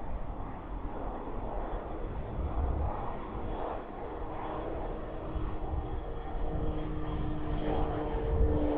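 Twin-turboprop Beechcraft King Air on approach to land, its engine and propeller noise growing louder as it nears. In the last couple of seconds a steady propeller hum comes up over the rumble.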